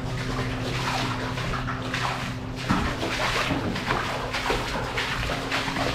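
Footsteps wading through shallow water in a brick culvert: a run of irregular splashes and sloshes, with a few sharper splashes from about the middle on.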